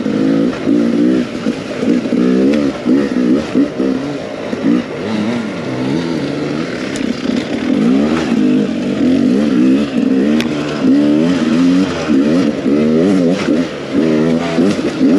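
Beta 300 RR two-stroke enduro motorcycle engine being ridden hard, its pitch rising and falling over and over as the throttle is opened and shut in quick bursts.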